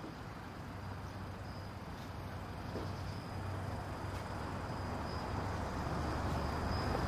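Outdoor night ambience: a steady low rumble of idling cars under a faint, steady high trill of insects such as crickets, slowly growing a little louder.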